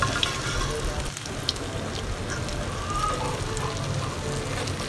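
Urad dal vadas deep-frying in hot oil in a kadhai, a steady sizzle and bubbling, with a few sharp clicks as a metal fork turns them in the pan.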